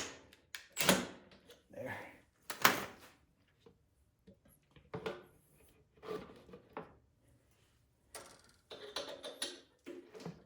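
Scattered metal clicks and knocks from a small wrench working a snowblower's tight oil drain nut loose, then the nut being handled. A single sharp knock about three seconds in, and a cluster of light clatters near the end.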